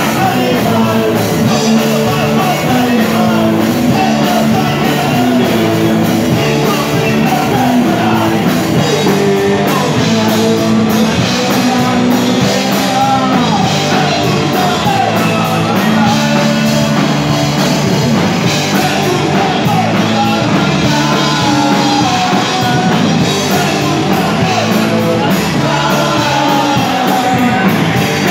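Punk rock band playing live, with electric guitar and a singer at the microphone, loud and steady.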